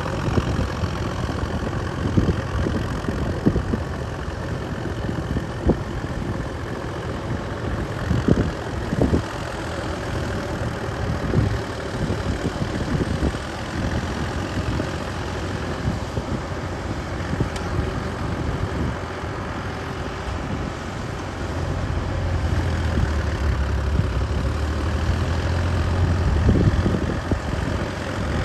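Tractor's diesel engine running steadily, with scattered short knocks, and getting louder and deeper for a few seconds near the end.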